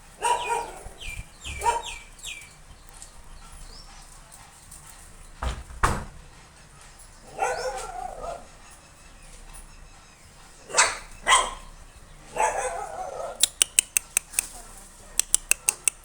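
Four-week-old Combai puppies barking and yelping in short bursts, with high thin squeals early on. A single thud comes about halfway, and runs of quick sharp clicks come near the end.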